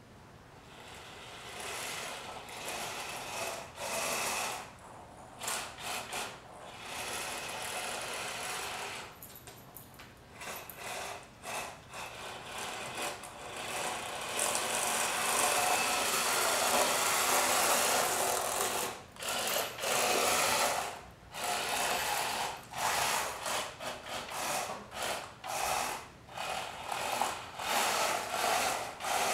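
A small remote-controlled robot car's electric drive motors whirring in stop-start spurts as it drives across a hardwood floor. The whir rises and falls as its speed is changed from a gamepad joystick, with one longer run in the middle and many short bursts toward the end.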